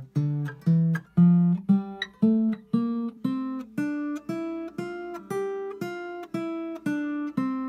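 Steel-string acoustic guitar playing the G Dorian scale one plucked note at a time, about two notes a second. The notes climb step by step to the top G about five seconds in, then start back down the scale.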